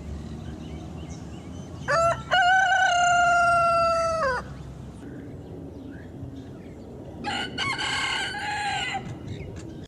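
Rooster crowing twice: a loud crow about two seconds in whose long held last note drops off at its end, then a second, fainter crow near the end.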